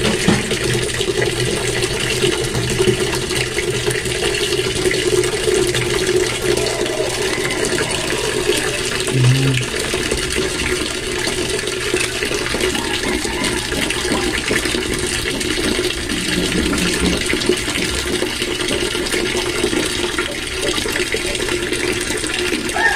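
Knife slicing carrots into strips on a plastic cutting board, faint against a steady rushing noise with a low hum that runs throughout.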